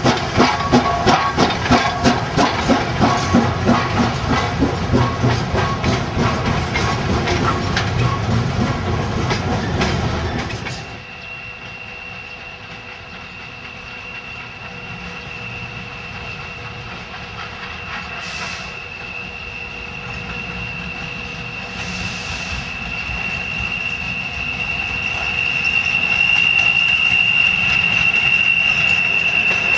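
Chinese 2-8-2 steam locomotive working a loaded freight train past, with rhythmic exhaust beats and rail clatter. About eleven seconds in it gives way to a quieter locomotive running slowly tender-first: a steady high-pitched wheel squeal that grows louder near the end, with two short hisses of steam.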